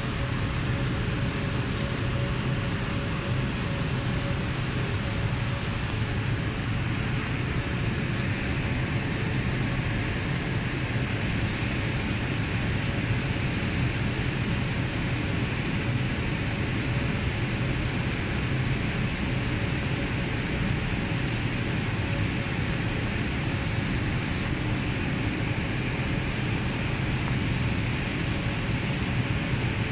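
Steady whir of equipment-room cooling fans with a low hum underneath and a faint constant tone.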